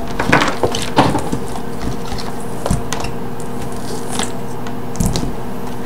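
Handling noise from two plastic gaming headsets and their thick cables being moved and set down on a table: scattered light clicks, knocks and rustles, busiest in the first second and again about five seconds in, over a steady background hiss.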